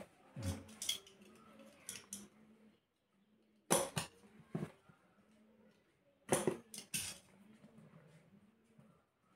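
Hands handling a smartwatch's boxes and parts: sharp clicks, taps and knocks in three clusters, about a second in, near four seconds, and around six and a half to seven seconds.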